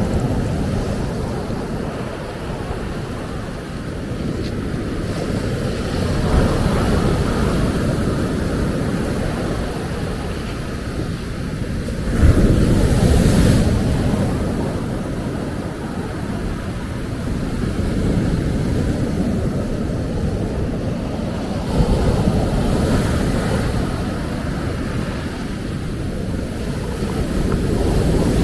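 Ocean waves breaking and washing on a beach in repeated surges, over a steady low rumble of wind on the microphone. The loudest wave crashes a little before halfway through, and another breaks about three quarters of the way in.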